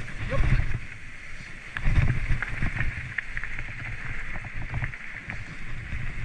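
Mountain bike riding over rough trail ground, with the bike rattling and clicking and the tyres rolling on rock and dirt, and wind rumbling on the microphone. Two hard jolts, about half a second and two seconds in, are the loudest moments.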